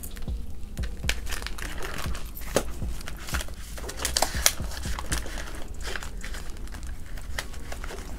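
Paper banknotes rustling and flicking as they are handled and stuffed, with the crinkle of a clear plastic binder envelope being opened. Many short, sharp rustles follow one after another.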